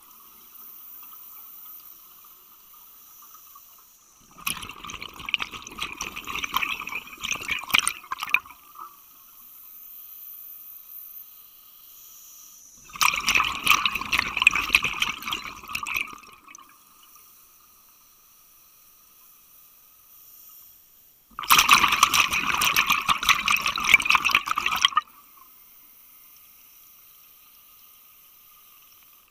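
Scuba regulator underwater: three long exhalations, each a burst of bubbling lasting three to four seconds, with quieter stretches between them as the diver breathes in.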